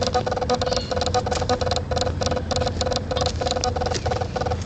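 Geese honking: a rapid, evenly repeated run of short honks, about four a second.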